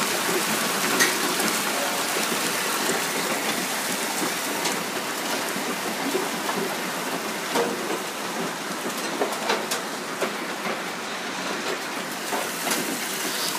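Hailstorm: a dense, steady patter of hailstones and rain striking clay roof tiles and paving, with scattered sharper ticks of single stones hitting.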